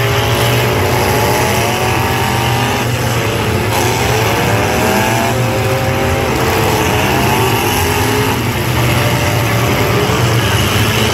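Several demolition derby pickup trucks' engines running and revving hard over a steady low engine drone, their pitch climbing again and again as the trucks accelerate.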